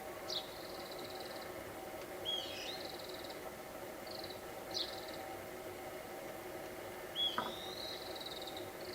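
A songbird calling over and over, every two seconds or so: a short swooping note runs into a fast, buzzy trill. Under the calls is a steady low hum, and a short sharp click comes about seven seconds in.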